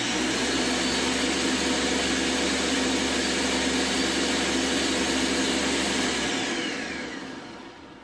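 Countertop blender motor running steadily at full speed, blending a shake. About six seconds in it is switched off and the motor winds down with a falling whine.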